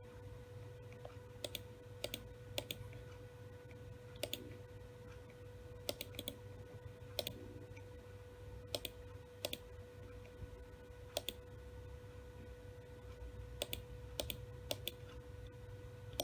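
WD Caviar Blue hard drive giving the 'click of death': sharp clicks every second or two, often in twos or threes, over a steady low hum. This repeated clicking is the sign of a failing drive.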